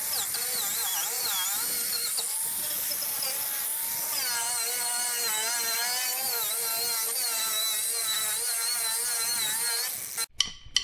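Chicago Electric 4-1/2 inch angle grinder running steadily under load against a workpiece, its whine wavering in pitch as the pressure changes. A few sharp clicks near the end.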